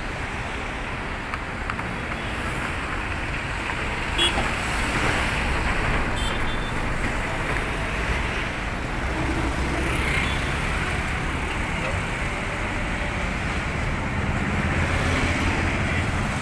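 Bus engine running with road traffic noise, a steady low rumble under a wash of noise, with faint voices behind it.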